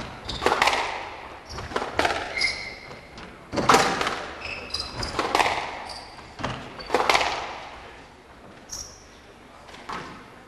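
Squash rally: the ball struck hard by rackets and smacking the front wall, about five loud hits spaced one and a half to two seconds apart, with short high-pitched shoe squeaks on the wooden court floor between them. The hits thin out after about seven seconds.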